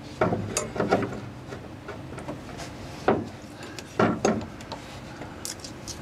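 A steel pedal bracket being handled against the car's firewall while a mounting bolt is fitted: a few separate metal clunks and rubs, the loudest about three and four seconds in, then light clicks near the end.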